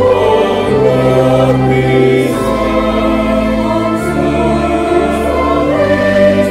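Choir singing a hymn in slow, held chords, with long low notes beneath that change every second or two.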